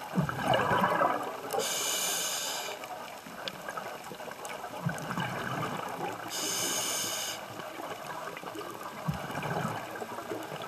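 A scuba diver breathing through a regulator underwater: two hissing inhales, each about a second long, alternating with the rumble of exhaled bubbles.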